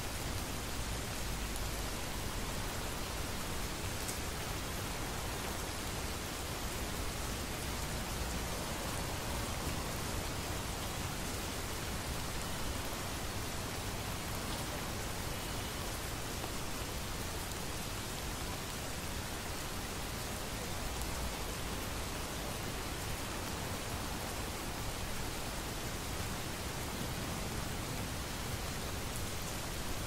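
Steady, even rainfall in a thunderstorm, with a faint low rumble now and then.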